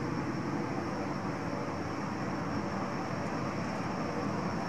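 F/A-18 Hornet's jet engines running steadily on the ground, a constant rush of noise with a thin high turbine whine on top.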